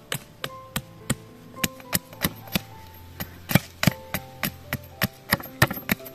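Machete chopping into an upright wooden stick, a run of quick, sharp strokes at about three a second with brief pauses between runs.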